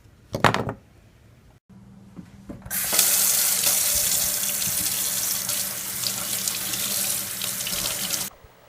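Tap water running into a sink for about five and a half seconds, with a faint low hum underneath, then cut off abruptly. A brief loud burst of noise comes about half a second in, before the water starts.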